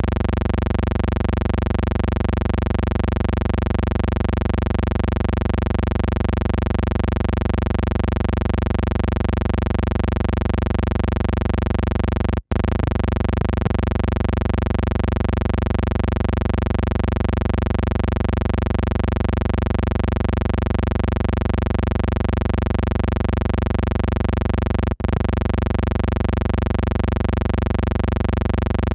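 A loud, unchanging electrical hum with a buzzy stack of steady overtones, cutting out for an instant twice, about twelve seconds apart.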